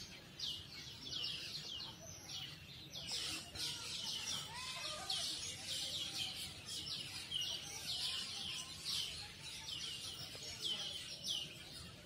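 Several birds chirping in the tree canopy: a steady stream of quick, high chirps, several a second, with a few softer, lower warbling notes among them.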